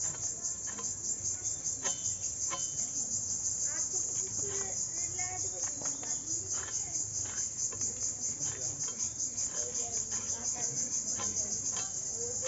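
Crickets chirping in a steady, high-pitched chorus that pulses about five times a second. Over it come scattered short clicks and scrapes of hilsa being scaled and cut on a blade.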